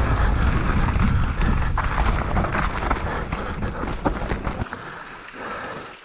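Wind buffeting the camera microphone while a mountain bike runs fast down a rocky dirt trail, with tyre noise and scattered knocks and rattles from the bike over roots and stones. The low wind rumble drops away near the end as the bike slows.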